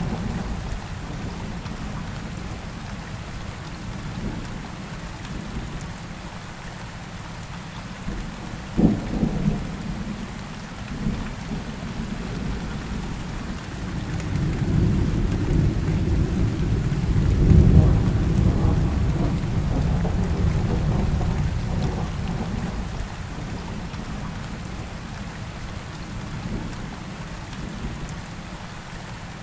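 Recorded rainstorm: steady rain with rolling thunder. A sudden sharp crack comes about nine seconds in, and a long low rumble builds through the middle and peaks a little past halfway before fading.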